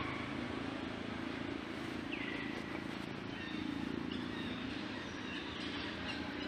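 Steady outdoor background noise with a low hum, and one faint short high call, falling then held, about two seconds in.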